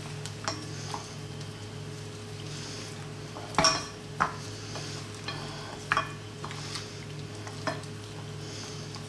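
Gloved hands mixing lamb chops in an oily lemon-and-spice marinade in a bowl: soft wet squelching and rubbing every second or two, with a few short sharp clicks against the bowl. A steady low hum runs underneath.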